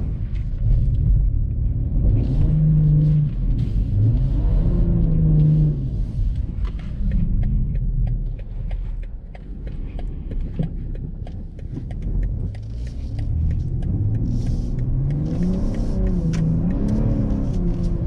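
BMW M340i's turbocharged straight-six engine running and revving, its pitch rising and falling several times, over a steady low rumble of the car driving on snow. Many small clicks and taps run through it, and the whole sound drops a little in the middle.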